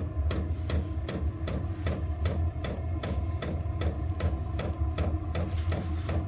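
Vevor diesel air heater during start-up: its fuel dosing pump ticks about four times a second over the steady hum of the blower fan.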